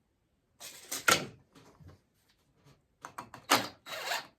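Wooden boards and tools being handled on a work surface: two bursts of scraping and sliding, each with a sharp knock, about a second in and again past the middle.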